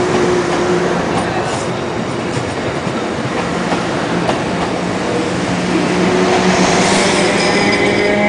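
Taiwan Railways EMU400-series electric multiple unit pulling out and accelerating past the platform, its wheels clicking over the rail joints. Near the end a higher whine rises over the running noise.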